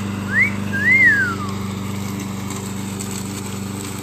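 Gasoline walk-behind lawn mower engine running steadily. In the first second and a half there is a wolf whistle: a short rising note, then a longer one that rises and falls away.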